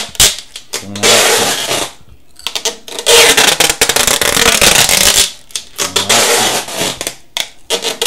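Wide adhesive packing tape screeching as it is pulled off the roll in long strips, each pull a second or two, with short pauses between.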